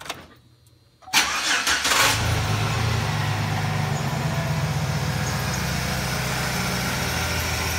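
2008 Chevrolet Silverado engine cranked by the starter for about a second, catching and settling into a steady idle. The idle is being listened to for a lifter tick that a filter change and a half quart of added oil are meant to quiet.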